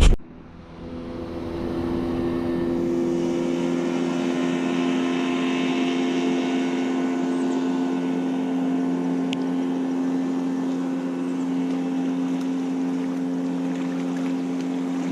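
Motorboat engine running at a steady speed on the lake: an even, unchanging hum that comes up about a second in and holds.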